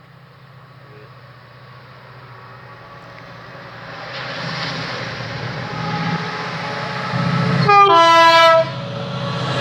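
A train approaching along the platform, its running noise growing steadily louder, then sounding a short two-note horn blast near the end: a brief higher note dropping into a longer lower one.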